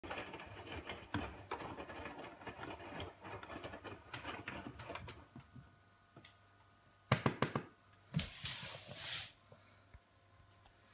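Hotpoint washing machine in the middle of a 60° whites wash: the drum tumbling the laundry, a busy sloshing rattle over a low motor hum, stops about five seconds in, leaving the hum. Near the end come a few sharp clicks and a knock.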